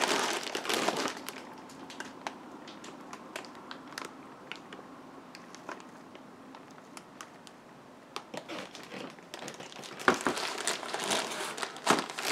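Clear plastic wrapping on a folded cat carrier crinkling as it is held up and handled. It is loudest in the first second and again over the last four seconds, with scattered small crackles in the quieter stretch between.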